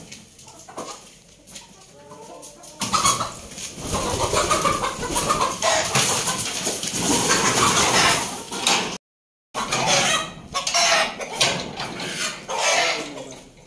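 Country chickens squawking and cackling in alarm while one is grabbed by hand, with its wings flapping. The commotion starts loud about three seconds in, cuts out for a moment about two-thirds through, then goes on in shorter outbursts.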